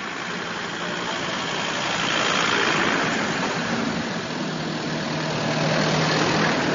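An ambulance and then an SUV with a roof light bar drive slowly past close by, engine and tyre noise swelling as each one goes by. The second vehicle brings a steady engine hum, and the sound cuts off suddenly at the end. No siren is sounding.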